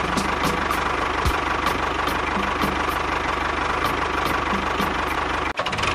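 An engine idling steadily with a regular knock about four times a second. The sound drops out for a moment near the end.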